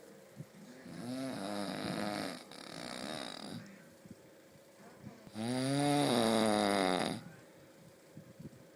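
A person snoring heavily: two long snores, one starting about a second in and another about five and a half seconds in, each about two seconds long, with quieter breathing between.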